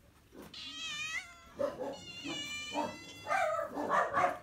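Several house cats meowing over one another, begging for food. Two long, high meows come first, then a run of shorter, harsher calls near the end.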